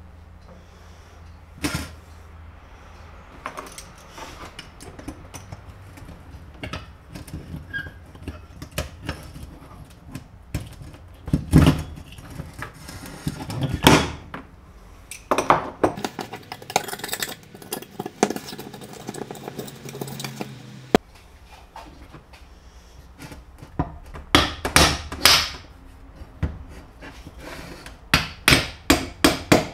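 Workshop work on metal parts with hand tools: irregular sharp clicks, taps and knocks, the loudest near the middle. In between there is a steadier noisy stretch with a low hum that cuts off suddenly, and near the end come quick runs of sharp clicks.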